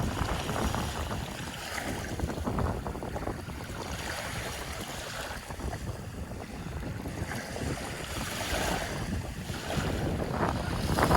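Ocean surf washing ashore in slow surges, growing louder near the end, with wind rumbling on the microphone.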